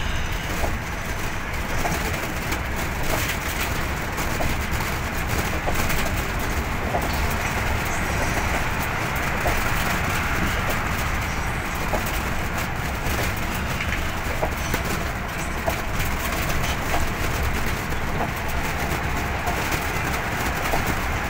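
Steady road and engine noise heard from inside a moving vehicle's cabin, with scattered faint squeaks and rattles.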